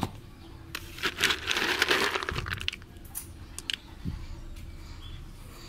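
Handling noise: a few sharp clicks and knocks, and a rustling crinkle from about one to two and a half seconds in.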